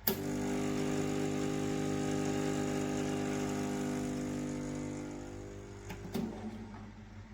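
Espresso machine pump running with a steady buzzing hum, switched on with a click and fading out after about five seconds, followed by two clicks.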